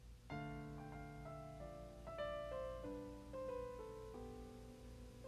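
Slow, soft piano music: sustained chords and a melody whose notes change every half second to a second, the first chord struck about a third of a second in.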